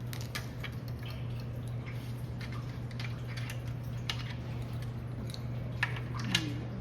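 Scattered light clicks and taps of hard plastic car grille parts being handled and pressed together, over a steady low hum; the sharpest click comes near the end.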